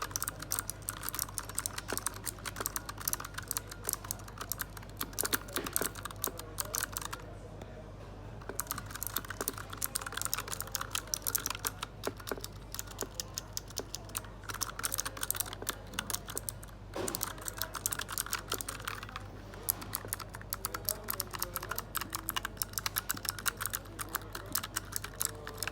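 Fast typing on an A4Tech Bloody D800 mechanical keyboard: a dense run of crisp key clicks with a few brief pauses, over a faint steady low hum.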